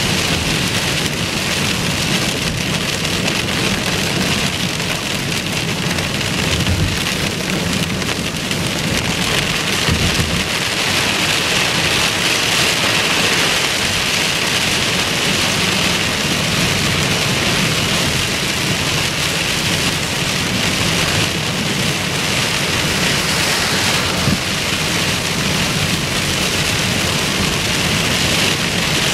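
Heavy rain hitting a moving car's roof and windshield, heard from inside the cabin as a loud, steady hiss over low road noise.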